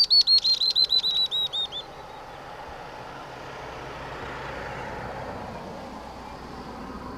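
Spectacled weaver calling: a fast run of about a dozen high, arched notes in under two seconds, falling slightly in pitch and fading. After it, a low rushing noise swells and eases over a faint steady insect drone.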